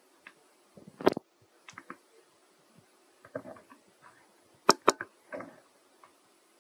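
A few sharp clicks and snaps with light rustling between them, from monkeys moving among leafy branches. The loudest are one snap about a second in and two close together near five seconds.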